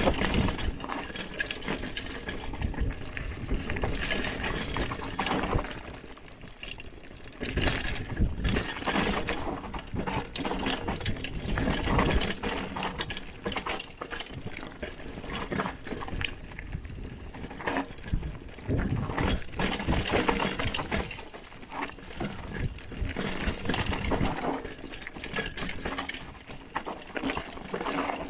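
Hardtail mountain bike riding down a rough, rocky trail: continuous rattling and clattering of the bike over the ground, with tyre noise on dirt, easing off briefly a few times.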